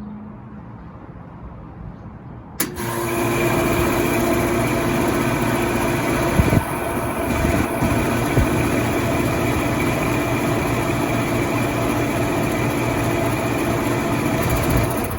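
1989 Day and Night TECH2000 591AN air conditioner starting up: after a faint hum, a sharp click about two and a half seconds in as it switches on, then the compressor and fan run loudly and steadily with a steady hum and whine.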